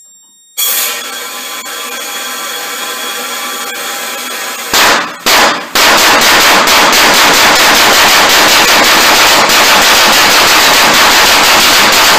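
A homemade propane-fed, spark-ignited pulse detonation engine. About half a second in, air starts hissing through it steadily. Just under five seconds in, it fires with two separate bangs, then runs as a fast, even string of very loud detonations.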